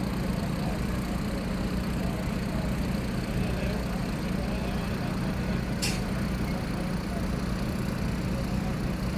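Fire truck engines idling steadily, a constant low hum, with faint distant voices and a single short sharp click about six seconds in.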